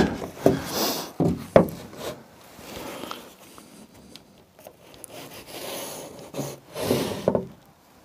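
Pencil scraping along a steel framing square on a plywood wall panel as layout lines are drawn, with the square sliding and knocking against the wood. A few sharp knocks come in the first two seconds, and the longest, loudest scrape comes near the end.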